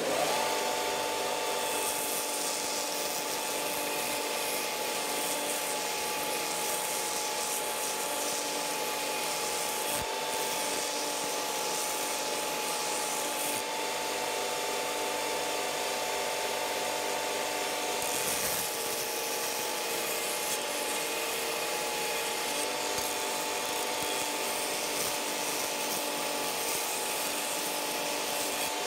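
Belt grinder with a wide abrasive belt running steadily while a steel horseshoe is pressed against it and ground, a constant whine over the hiss of the grinding.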